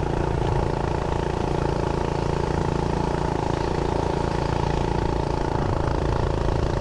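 Rascal Lite mini bike's small single-cylinder engine running flat out at a steady pitch while riding, held at its governed top speed of about 20 mph.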